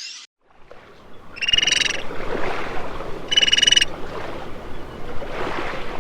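An animal calling twice: two short, buzzy, rapidly pulsed calls of about half a second each, roughly two seconds apart, over a steady background hiss.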